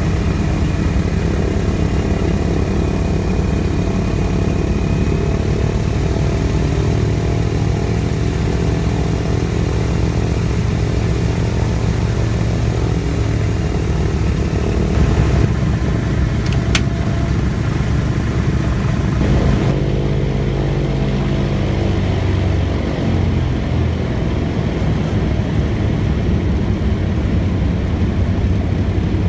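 The twin radial piston engines of a Douglas DC-3, heard from inside the cockpit, run steadily. Their drone shifts in pitch several times as the throttles are worked, and drops a little after twenty seconds in. A single sharp click comes about seventeen seconds in.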